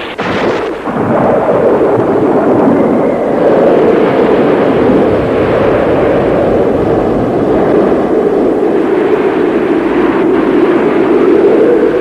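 Storm-at-sea sound effect: a steady rushing roar of wind and heaving waves, opened by a sharp crash just at the start.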